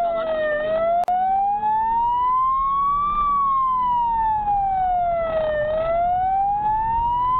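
Police car siren sounding a slow wail, its pitch sweeping down and up about every five seconds, heard from inside the patrol car with engine and road noise underneath. The sound drops out for an instant about a second in.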